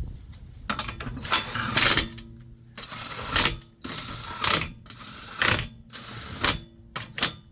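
Impact wrench run in a series of short bursts, about one a second, typical of running the lug nuts onto a refitted wheel.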